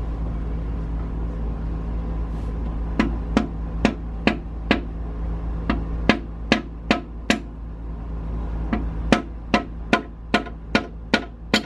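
Hammer blows knocking a piston out of a cylinder of an International DT466E diesel engine. They come in quick runs of five to eight strikes, about two or three a second, starting about three seconds in, over a steady low hum.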